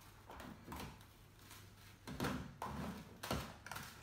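Hands opening and handling a plastic food container of frozen melon pieces: a few irregular plastic knocks and rustles.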